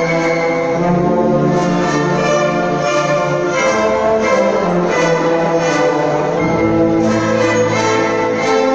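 Symphony orchestra playing a slow passage of held chords, with the bass note moving to a new pitch about a second in, again near the middle and again past two-thirds of the way.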